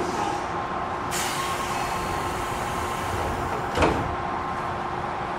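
Inside an Odakyu 1000-series electric train standing at a station: a steady equipment hum, a sudden hiss of compressed air about a second in, and one loud thump near four seconds in, typical of the doors closing.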